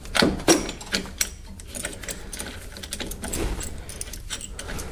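Brake caliper piston compression tool being screwed in by hand on a front brake caliper: irregular metallic clicks and clinks from the threaded rod and its fittings, a few louder ones near the start. The piston is being pushed back into the caliper to make room for new, thicker pads.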